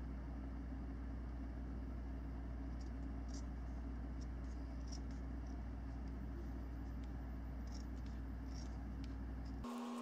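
Steady low hum with faint scratching and rustling from handling a strip of self-fusing silicone tape. Near the end the hum cuts off abruptly and a few faint steady tones take its place.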